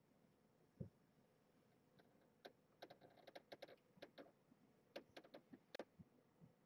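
Faint scattered clicks and light taps from a hand handling young kittens on fleece bedding and the kittens shifting under it, most of them between about two and six seconds in. One soft low thump comes a little under a second in.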